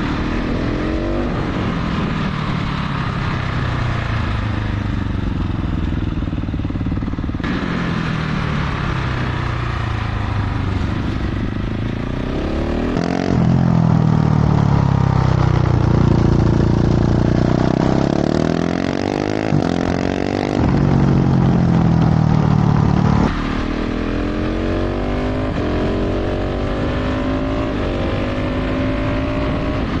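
KTM 690 SMC R's single-cylinder engine through a full LeoVince exhaust, under way and pulling up through the gears, its pitch rising again and again and dropping back between shifts. It is louder for about ten seconds in the middle.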